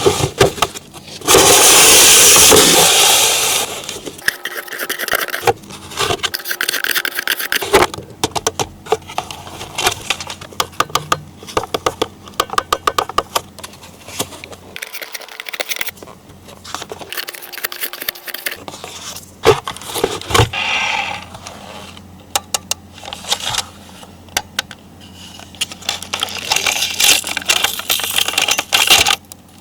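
Handling of a plastic toy vehicle and its packaging: a run of small clicks, scrapes and rattles, with a loud rustling burst lasting about a second and a half near the start and more rustling near the end.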